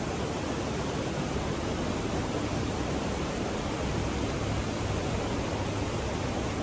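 Steady rushing of a river flowing over rock, an even wash of water noise.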